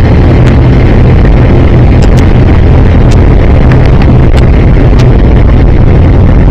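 Airliner's engines during takeoff, heard from inside the cabin: a loud, steady roar with a low hum, with a few light clicks scattered through it.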